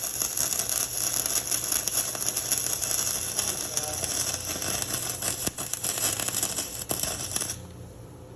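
Flux-core wire welder's arc crackling steadily as a weld bead is run, cutting off suddenly near the end.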